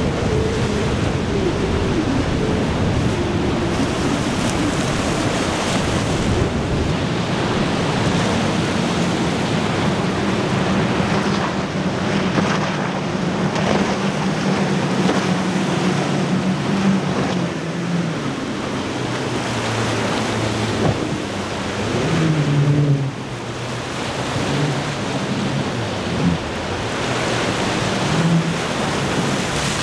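Outboard motors of passing powerboats running, the engine hum rising and falling in pitch, over the hiss of breaking surf and wind on the microphone.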